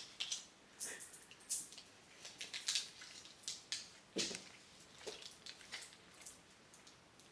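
Chocolate bar wrapper crinkling and crackling in short, irregular bursts as it is handled and opened by hand.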